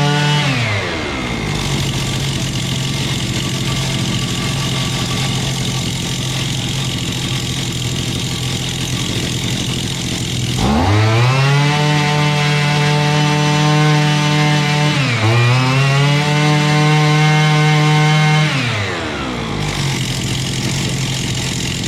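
The small two-stroke engine of a Castor 55 brushcutter. It drops to idle about a second in, revs up to full throttle about halfway with a brief dip, holds there, and falls back to idle near the end. It now takes full revs cleanly because its clogged exhaust has been cleaned; before, it bogged down under throttle.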